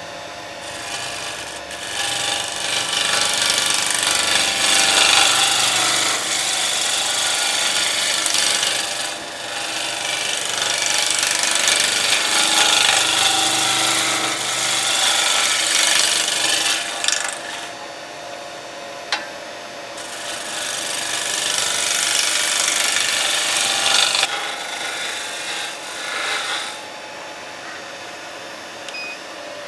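A turning tool cutting golden cypress spinning on a Record Power Coronet Herald wood lathe: a hissing, rasping peel of shavings in several long passes over the lathe's steady motor hum. Near the end the cutting stops and only the running lathe is left.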